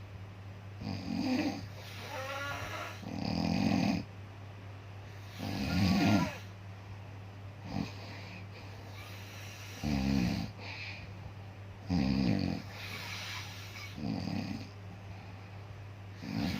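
Snoring, one snore about every two seconds, over a steady low hum.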